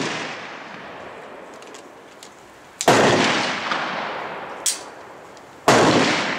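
Gunshots outdoors: two sharp shots about three seconds apart, each followed by a long echoing tail. The tail of an earlier shot fades away at the start, and there is a short sharp click between the two shots.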